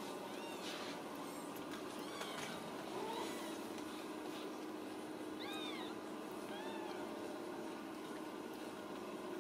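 Very young Ragdoll kittens mewing: about six short, thin, high-pitched mews scattered through, the loudest a little past halfway.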